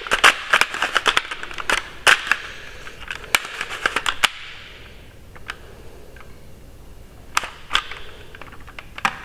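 Plastic clicks and snaps from the opened-up Bug-A-Salt salt gun's cocking and trigger mechanism being worked by hand to test it. The clicks come quickly for about four seconds, then only a few scattered clicks follow. The repaired sear is not working right yet, which the owner puts down to too much material still left on a screw.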